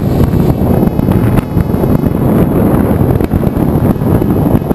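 Loud wind buffeting on the microphone of a camera mounted on a flying RC model plane, as airflow rushes over it.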